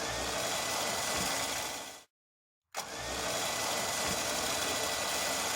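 A steady motor-like noise, broken by a sudden dead gap of about half a second near the middle before it resumes unchanged.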